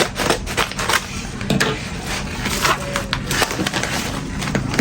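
Packaging being handled and unwrapped: a dense, irregular run of sharp crackles and clicks.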